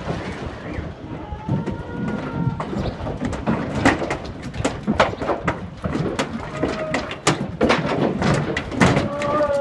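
Cattle hooves clattering and knocking irregularly on the metal floor and stepped ramp of a livestock truck as the cows step down, several sharp knocks a second. A couple of brief high-pitched calls are heard, one about two seconds in and one near the end.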